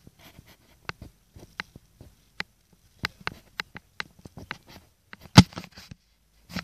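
Irregular clicks and knocks of a handheld phone being jostled while its holder walks, with one much louder knock a little over five seconds in.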